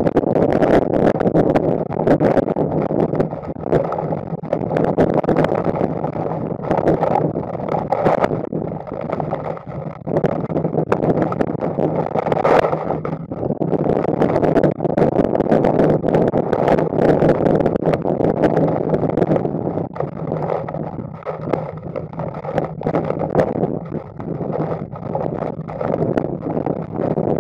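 Hurricane eyewall winds, over 150 mph, blasting across a storm-surge camera probe's microphone: loud, unbroken wind noise, with constant sharp ticks and knocks of rain, spray and debris striking the housing.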